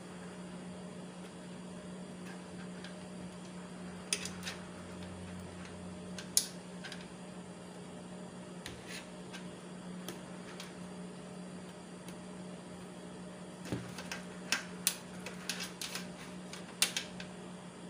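Scattered sharp clicks and taps of a motherboard and its cable connectors being handled against an open computer case, bunched together near the end, over a steady low hum.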